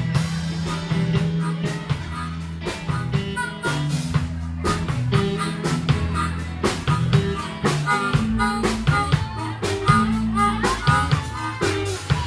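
Live blues band: a harmonica played into a hand-held vocal microphone, wailing with bent notes over electric guitars and a drum kit keeping a steady beat.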